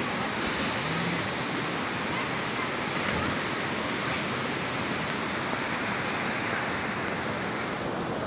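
River water rushing steadily over rocks and boulders.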